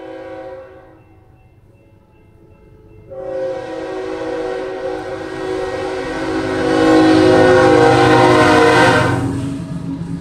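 Locomotive air horn: a short blast that ends within the first second, then a long blast from about three seconds in that grows louder and cuts off shortly before the end. Under it, the low rumble of the oncoming train builds and runs on after the horn stops.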